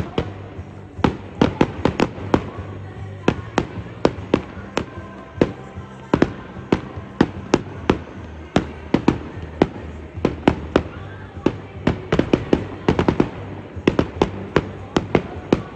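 Aerial fireworks bursting in rapid succession, with sharp bangs and crackles several times a second and no let-up.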